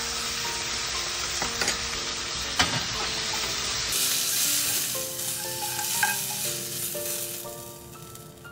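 Vegetables and bacon sizzling as they are stir-fried in a nonstick frying pan, with a few clicks of a metal utensil against the pan. The sizzle fades near the end.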